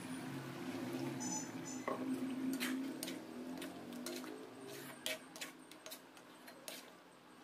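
Ladle stirring a simmering beef korma in a metal pot, clicking and knocking against the pot's sides several times, over a low steady hum.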